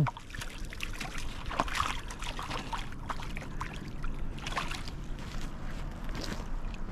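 Scattered small crunches and clicks of gravel on a rocky shoreline, irregular and light, over a faint steady background.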